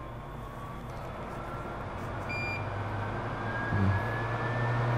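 Electric fan motor running with a thin whine that rises slowly and steadily in pitch. A short electronic beep sounds about two seconds in, and a deeper hum grows louder just before the four-second mark.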